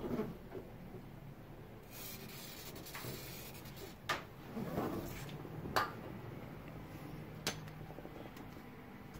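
Aerosol silicone spray hissing briefly through its straw about two seconds in, lubricating the control arm's bushing bore so the new bushing slides in. Three sharp clicks follow a few seconds later.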